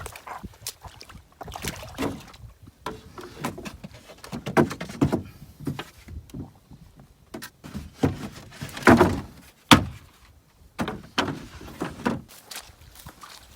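Footsteps with irregular knocks and cracks of dry wood being gathered and handled for firewood, the loudest crack about nine seconds in.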